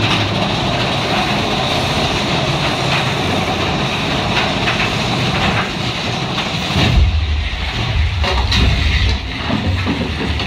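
Big Thunder Mountain Railroad mine-train roller coaster running along its track with a steady rattle and clatter of wheels and cars. About seven seconds in, the rattle thins and a deep low rumble takes over.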